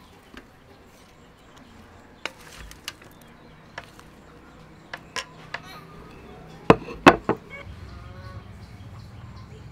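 Wooden spoon knocking and scraping against a ceramic plate and a metal colander as fried chicken wings are spooned out, in scattered clicks. Two sharper knocks come close together about two-thirds of the way in.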